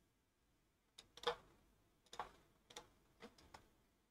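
A few faint, scattered clicks of a computer mouse and keyboard, about six in all, with the loudest about a second in.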